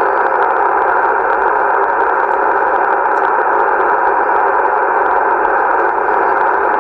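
Steady hiss and static from a Yaesu FTDX-1200 HF transceiver's receiver, tuned to 14.270 MHz upper sideband on the 20-metre band. The noise fills the narrow voice passband, with no signal on frequency.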